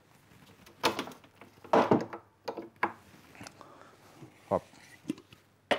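Plastic knocks and clatters as an electric blender's base and jar are handled and set down on a stone countertop, a few separate knocks spread irregularly.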